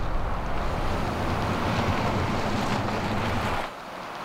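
Rivian R1T electric pickup passing on asphalt: a steady rush of tyre noise and wind with a low rumble. It drops off abruptly about three and a half seconds in to a quieter hiss.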